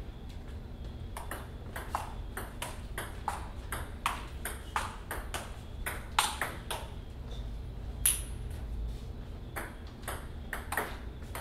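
Table tennis rally: the ball clicking off the paddles and the table in a quick back-and-forth, about two to three hits a second, with a sharper, louder hit about eight seconds in.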